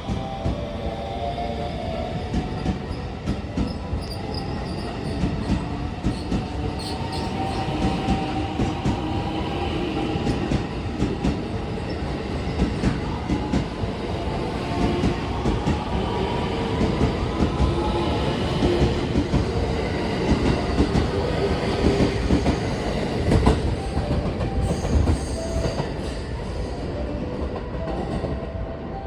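JR West 223 series and 225 series electric multiple unit pulling out and accelerating. The motor whine rises in pitch, over a steady rumble and clatter of wheels on rails that eases off near the end.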